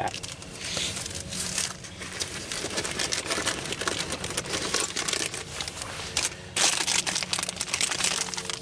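Plastic packaging crinkling and rustling as hands rummage in a nylon backpack pocket, with a louder burst of crinkling near the end as a zip-top plastic bag is pulled out.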